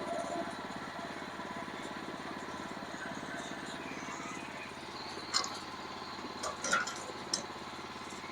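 A small engine idling steadily, with a few sharp knocks and clunks in the second half as a heavy log is shifted and turned over.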